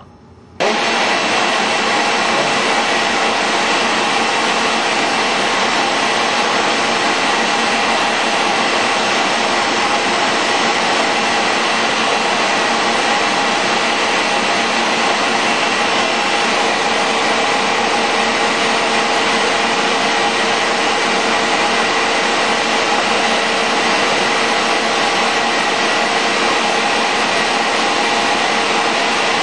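Air compressor, vacuum and heat gun of a powder-paint spray setup running together: a loud, steady mechanical noise with a few steady hum tones in it, starting suddenly about half a second in.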